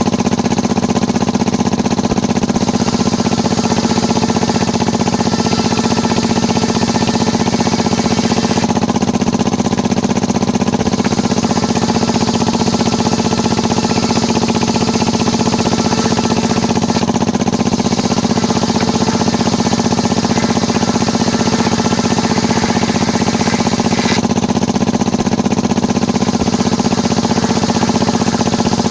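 Engine-driven circular sawmill running steadily, its saw cutting wood. A higher hiss from the cut comes and goes in long stretches, fading about 9 s and again about 24 s in.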